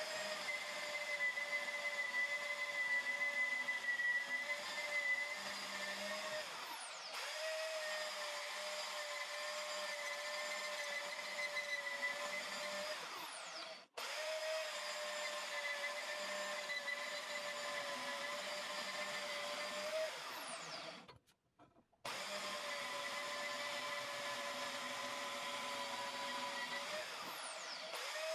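Band saw running with a steady whine, its blade cutting through a steel knife blank. The sound cuts off and restarts abruptly several times, with a brief drop to near silence about three-quarters of the way through.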